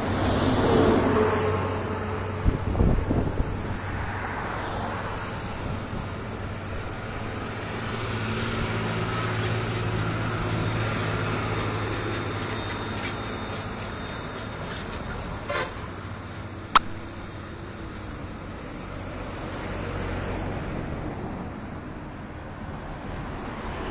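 Road traffic on a highway: motor vehicles passing one after another over a steady low hum, growing louder as each goes by, near the start, around the middle and again near the end. A single sharp click comes about seventeen seconds in.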